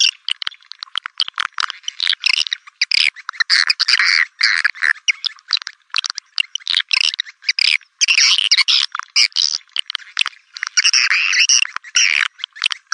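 Swiftlets calling: a dense, rapid chattering twitter of high chirps and clicks with no let-up, the kind of swiftlet lure call played to draw the birds to a nest house.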